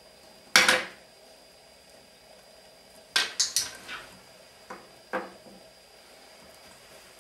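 Sharp hard clicks and clatters: one loud click about half a second in, a quick run of four or five around three seconds in, and two softer taps near five seconds.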